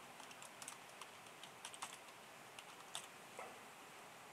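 Faint typing on a computer keyboard: irregular keystrokes several a second, with one louder click about three seconds in.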